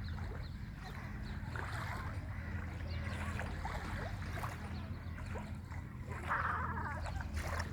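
Seaside ambience: a steady low engine-like hum under faint distant voices and water sounds.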